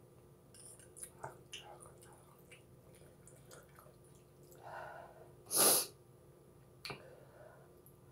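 Slurping chicken noodle soup off a spoon: one loud, sharp slurp a little past halfway, with small mouth and spoon clicks before it and one more click about a second after.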